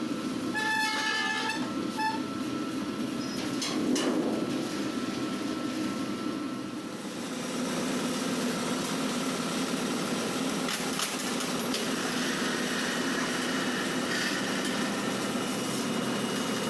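Steady hum of bakery machinery with the knocks and clatter of metal bread racks and trays being moved and loaded into a deck oven. There are a few short squeaks in the first two seconds and a knock about four seconds in. The noise grows a little louder and hissier about halfway through.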